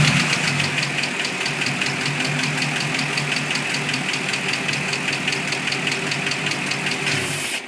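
2006 Mustang GT's 4.6-litre V8 idling with a steady, rhythmic ticking at about seven or eight ticks a second, which cuts off suddenly near the end. The tick comes from a failed camshaft roller follower on the passenger-side bank, whose bad roller bearing has worn a cam lobe almost round.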